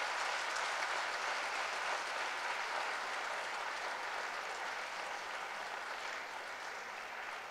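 Audience applauding, the clapping fading slowly toward the end.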